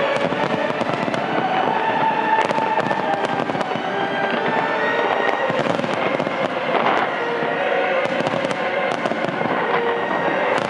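A dense, continuous barrage of fireworks: bursts and crackling pops overlapping without a break.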